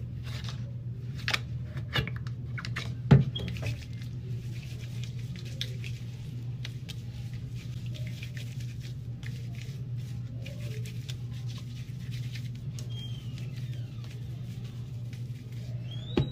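Hands rubbing lather over hair stiffened with Gorilla Glue spray: soft scattered rustles and small clicks, with a louder knock about three seconds in, over a steady low hum.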